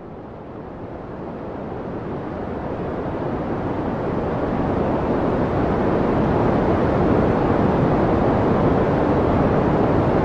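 Steady rushing noise like ocean surf, swelling slowly louder over the first six seconds and then holding level.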